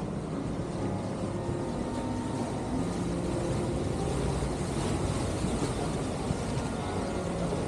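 Vaporetto water bus under way: a steady engine drone mixed with the rush of water along the hull.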